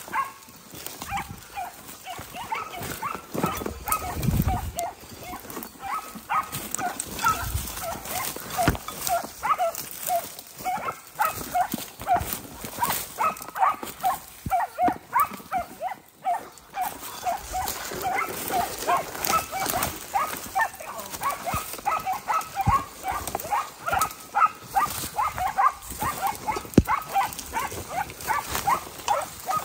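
Hunting dogs barking rapidly and without pause, about three barks a second.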